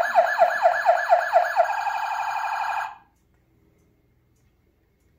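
Tonka toy fire truck's electronic siren sound effect, started by a push button. It plays a fast, repeating falling wail, about four whoops a second, changes to a steadier tone just under two seconds in, and cuts off suddenly about three seconds in.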